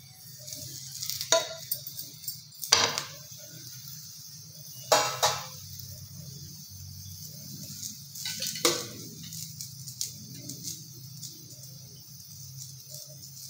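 Palak paratha sizzling in a nonstick frying pan, with about four sharp metallic clinks and knocks of the pan and spatula against the stove.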